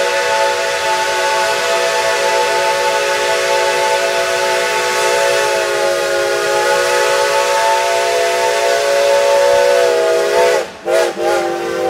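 Shay geared steam locomotive's whistle, a long steady multi-note blast held for about ten seconds. Near the end it is cut off twice in quick succession, the pitch sagging each time, before it sounds again.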